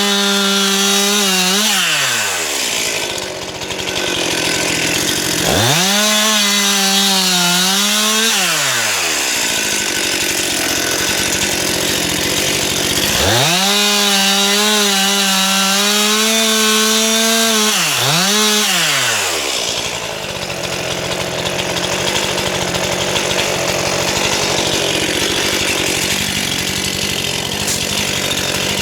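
Stihl MS 261 two-stroke chainsaw revved to full throttle three times, held high for a few seconds each while cutting wood, with the pitch sagging a little under load. It drops back to a lower run between cuts and idles for the last several seconds.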